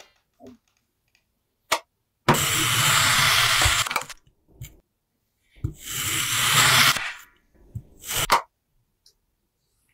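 A knife slicing through a block of kinetic sand: two long crumbling, scraping cuts of about a second and a half each, with a sharp tap of the blade before the first and after the second.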